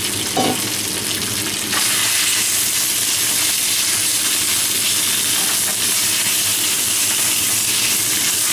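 Thinly sliced venison sizzling in a hot wok as it is stir-fried with long wooden chopsticks. The sizzle grows louder about two seconds in and then holds steady.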